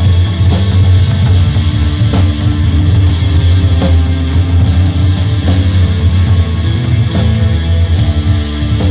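Instrumental heavy rock jam: a drum kit keeps a steady beat under loud, sustained low bass notes and guitar, with no vocals.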